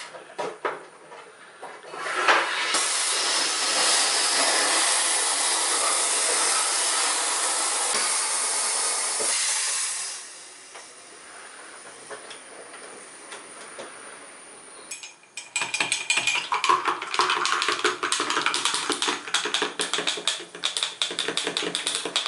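Mr. Butler home soda maker carbonating water: gas hisses loudly into the bottle for about eight seconds, then more quietly for several seconds. Near the end comes a rapid crackling of clicks as the bottle is handled at the machine.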